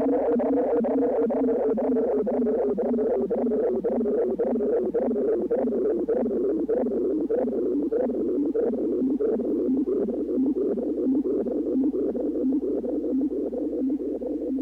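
Closing bars of a dub reggae track: a thin, filtered instrumental pulsing in a steady rhythm, fading out near the end.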